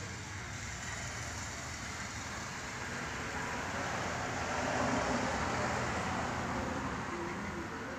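Steady rushing noise of passing road traffic, swelling to a peak about five seconds in and then easing off.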